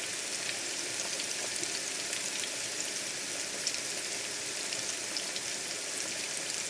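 Coated chicken wings sizzling steadily in hot oil in a shallow frying pan, a dense high hiss with scattered small pops and crackles.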